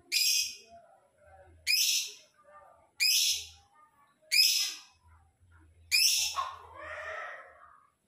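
A lovebird giving five loud, shrill calls, each about half a second long and roughly a second and a half apart; after the last, a quieter, lower sound runs on for about a second.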